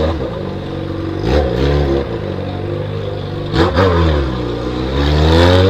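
Yamaha XJ6 motorcycle's inline-four engine through a 4-into-1 straight-pipe exhaust, revving while riding: the pitch drops about a second and a half in and again near four seconds, then climbs steadily toward the end.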